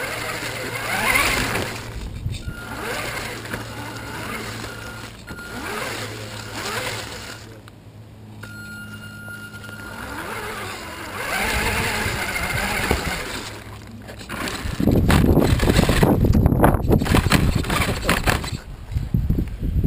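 Electric motor of a 1/10-scale RC buggy whining up and down in pitch with the throttle as it drives over grass, picked up by a camera mounted on the car, over rattling tyre and chassis noise. About fifteen seconds in it gives way to a louder stretch of knocking and rumbling.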